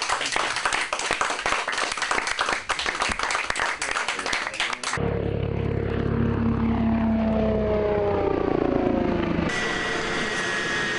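Eurocopter X3 hybrid helicopter in flight. For about five seconds there is a rough, rushing noise. Then, after an abrupt change, its engine and propeller whine falls steadily in pitch as it passes. About two seconds before the end, a steadier high whine takes over.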